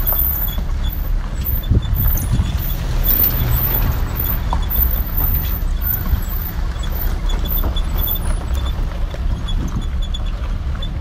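Vehicle driving on a dirt road: a steady low rumble of tyres and engine, with small rattles and knocks from the rough surface.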